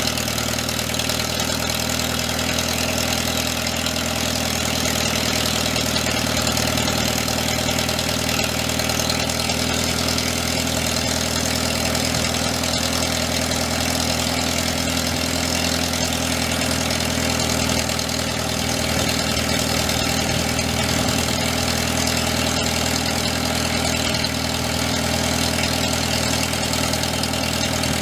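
International 354 tractor's four-cylinder gas engine running steadily at idle.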